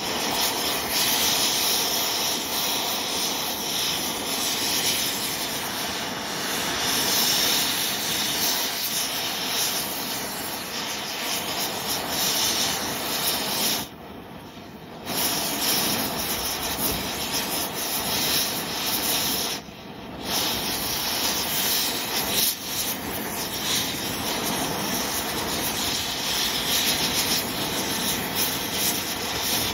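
Oxy-acetylene cutting torch running with a steady hiss as it melts a pistol, the noise dropping briefly about fourteen seconds in and again around twenty seconds in.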